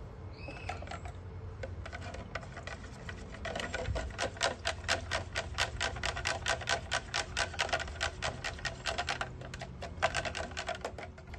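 A thin stirring rod knocks rapidly against the inside of a plastic tub as paint is mixed with acrylic thinner. The clicks run about five a second, growing louder and steady about three and a half seconds in.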